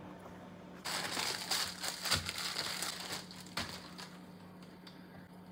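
Thin plastic wrapping crinkling and rustling as samosa pastry sheets are handled, starting about a second in and lasting about three seconds, with a couple of sharper clicks. A faint steady low hum runs underneath.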